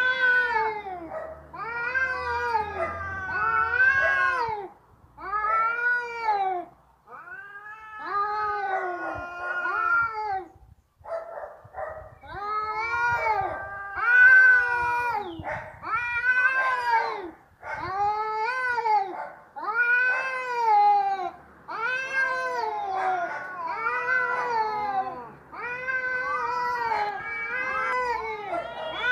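A cat yowling over and over: drawn-out cries that rise and fall in pitch, one about every second or so with a few short breaks. It is the angry caterwaul of a cat ready to fight.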